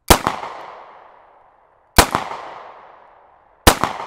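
Three pistol shots from a Bergmann-Bayard 1910/21 firing 9x23 Largo (9mm Largo), about two seconds apart, each a sharp crack with a fading echo.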